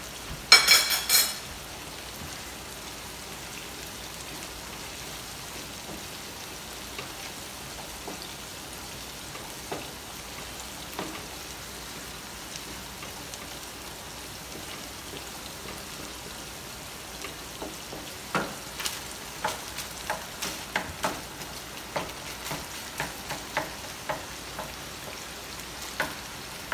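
Onion and fresh tomato sizzling steadily in a frying pan. A brief metallic clatter comes about half a second in, and from about two-thirds of the way through a spoon knocks and scrapes in the pan as the sauce is stirred.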